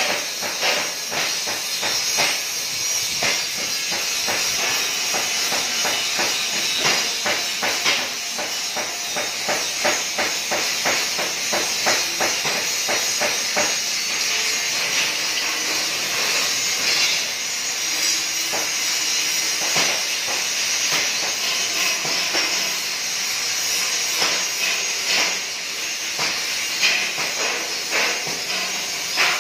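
DC TIG welding arc on 16 mm stainless steel, a steady hiss with frequent crackling, the crackles thickest in the first half.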